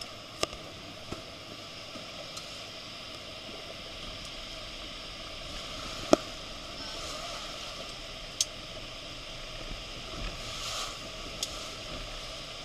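Steady rushing noise of a large waterfall and its spray, with a few sharp clicks, the loudest about six seconds in.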